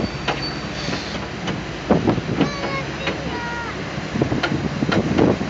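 Sightseeing boat under way on a river: a steady running noise from its motor and movement through the water, with a few short clicks and people's voices briefly in the background.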